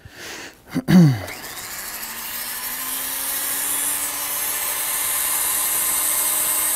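A handheld rotary tool with a small cutter runs steadily, its motor tone creeping slowly upward in pitch as it grinds into the wooden rifle stock's tang inlet, a rising high-pitched grinding hiss. A sharp knock comes about a second in, just before the grinding builds.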